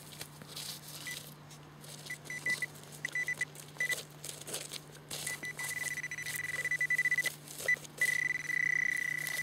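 Handheld metal-detecting pinpointer probe beeping as it is pushed through a pile of dug soil. Its single high tone comes in short, quickening beeps at first, then about halfway through becomes a nearly steady tone, which is the signal that the probe is close to the buried metal target. Faint scraping of the probe in the soil runs underneath.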